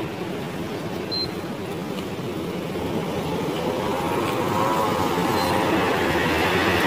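Road traffic passing on a city street, a steady noisy hum that grows louder over the second half as a vehicle approaches.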